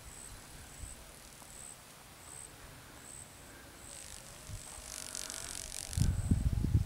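Open-air ambience with a high, regular chirp repeating about once every three-quarters of a second. About five seconds in, a gust of wind rises through the trees with a rushing hiss, and near the end it buffets the microphone with a low rumble.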